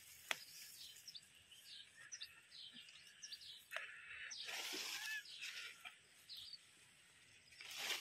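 Faint birdsong of many short, falling chirps, with a brief rustle of strawberry leaves about halfway through as a berry is picked by hand.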